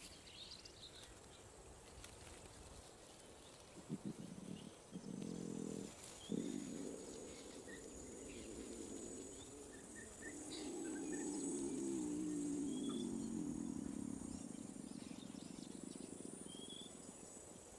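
Low moaning groans from a white lion cub in the grip of a seizure. There are short groans about four to six seconds in, then a long moan that swells and fades around the middle. Faint bird chirps and a steady insect hiss sound behind it.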